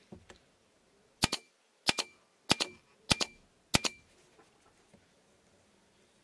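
Upholstery staple gun firing five times in a quick, even rhythm, about every 0.6 seconds. Each shot is a sharp double crack. Two faint clicks come just before the first shot.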